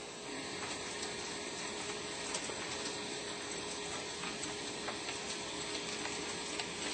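CNC machine running: steady machine noise with one constant tone and scattered sharp clicks.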